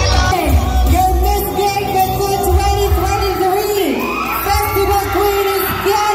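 A singer holding long, sliding notes over loud music with a heavy bass beat, with yells and whoops from the crowd.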